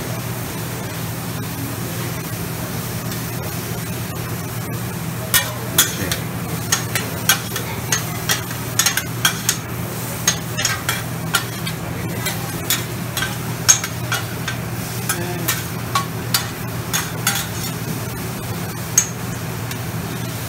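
Shrimp and vegetables sizzling on a steel flat-top griddle. From about five seconds in comes an irregular clatter of two metal spatulas scraping and striking the griddle, about two strikes a second, over a steady low hum.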